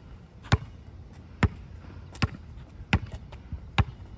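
A basketball being dribbled on an asphalt court: five sharp bounces, a little under a second apart.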